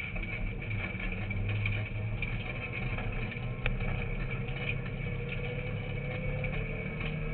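Car engine running under load, heard from inside the cabin while driving on a gravel road, with a constant rough noise of tyres on gravel and cabin rattles. The engine pitch climbs gradually and drops back shortly before the end, and there is one sharp click a little over halfway through.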